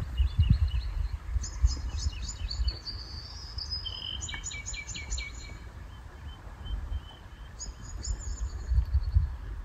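Small songbirds singing in three quick bursts of rapid high chirping notes, over a steady low rumble.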